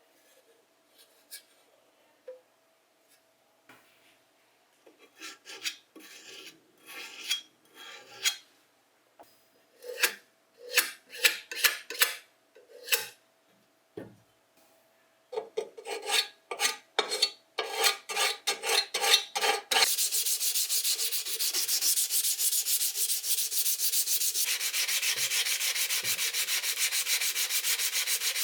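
Rust being rubbed off a bench grinder part by hand: scattered scraping strokes at first, coming closer together, then from about two-thirds of the way in a fast, continuous back-and-forth rubbing.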